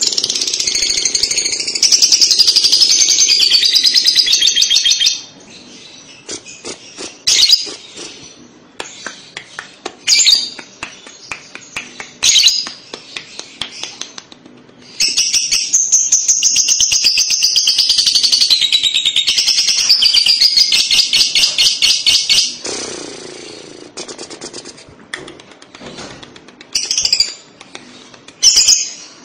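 Fischer's lovebird giving its long, rapid chattering song (the 'ngekek'). A fast, high, clicking trill runs for about five seconds at the start and for about seven seconds past the middle, with short chirps and clicks between.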